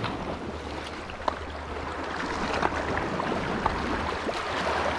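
Steady noise of sea water and wind, with a low hum underneath and a few faint clicks.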